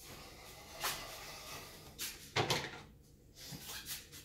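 A few light knocks and clatters of kitchen things being handled, the loudest about two and a half seconds in.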